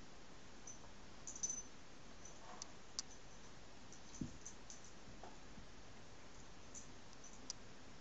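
Small dog rolling on her back on carpet and gnawing a toy: faint scattered clicks, with a soft thump about four seconds in.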